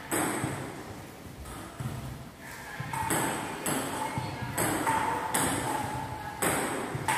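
Table tennis ball being hit back and forth in a rally: sharp clicks of the celluloid/plastic ball on rubber paddles and bounces on the table, about one to two a second at an uneven pace, ringing in a bare tiled room.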